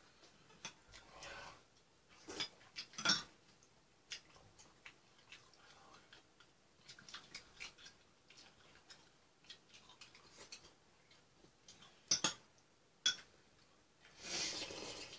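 Spoon and chopsticks clicking and clinking against bowls and a pot while eating ramyeon, with a few sharper clinks, then a slurp from a spoon near the end.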